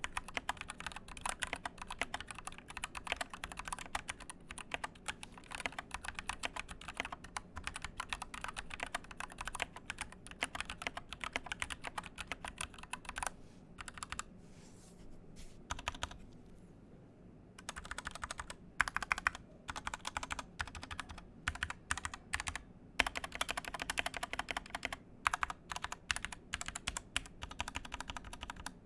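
Fast typing on a custom mechanical keyboard with Gateron Yellow linear switches: a continuous run of keystroke clacks that thins to a few scattered key presses about halfway through, then picks up again.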